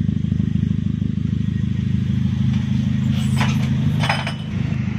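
Toyota Sienta idling through an aftermarket racing exhaust with a double muffler and no resonator, giving a steady, deep bass rumble. Two short sharp sounds break in over it about three and four seconds in.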